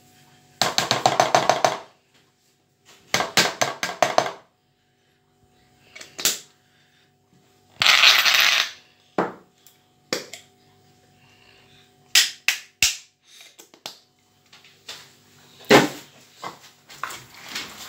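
A small spice jar shaken hard to shake paprika out, in several short bursts of rapid rattling clicks, with a few single taps and knocks in between.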